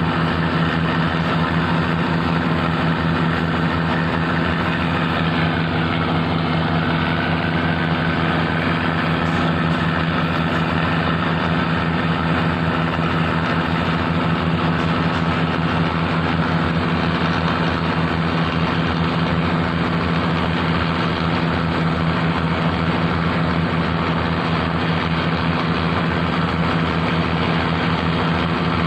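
A boat's engine running steadily at an even speed, a constant low drone with no breaks.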